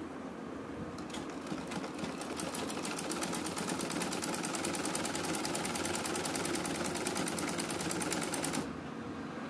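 Sewing machine stitching. It starts slowly about a second in, settles into a fast, even run of needle strokes, and stops abruptly near the end.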